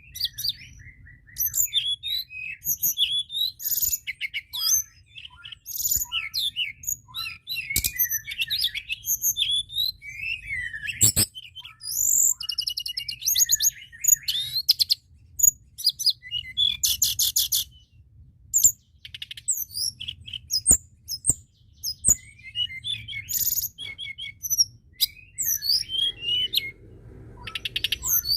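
Tledekan gunung singing a long, varied song: quick chirps, whistled slurs and fast rattling trills, one after another with short pauses. A faint steady low hum runs underneath.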